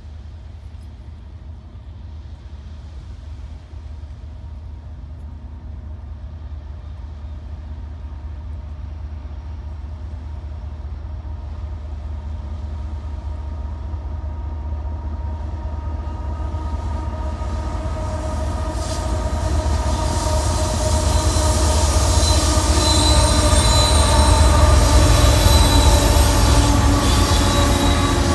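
BNSF diesel freight locomotive hauling a loaded coal train, approaching and then passing close by; its low rumble grows steadily louder. From a little past halfway, steady high squealing tones from the wheels on the rails come in over the rumble.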